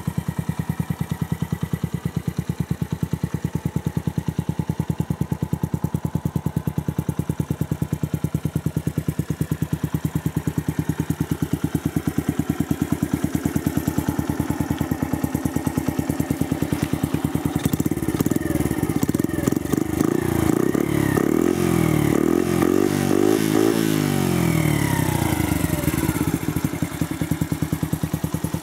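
Skyteam Dax minibike's single-cylinder four-stroke engine idling steadily through an NHRC aluminium upswept exhaust, then revved up and down several times from about two-thirds of the way in, before settling back to idle near the end.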